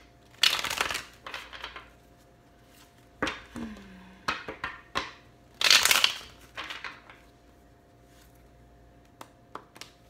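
A deck of tarot cards being shuffled by hand: several short bursts of rustling and riffling with pauses between them, quieter after about seven seconds.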